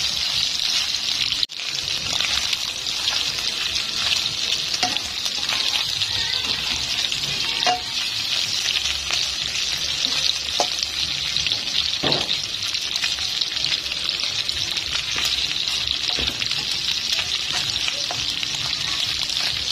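Marinated beef slices sizzling in hot cooking oil in a pan: a steady frying hiss with scattered crackling pops, the meat nearly done and browning. The sound drops out for a moment about a second and a half in.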